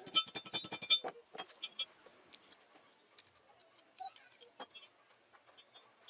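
Hammer striking steel rebar on a small steel I-beam anvil while a loop is bent into the bar's end. There are about ten quick ringing metallic blows in the first second and a few more just after. The rest is scattered lighter taps and clicks.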